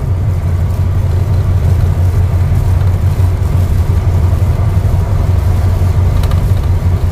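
Loaded Tata 12-wheel truck driving at highway speed: a steady low engine rumble with road noise.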